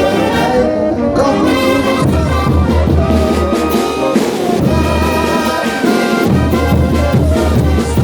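Bolivian carnival brass band playing, with trumpets and trombones over a low, pulsing bass line that comes in about two seconds in.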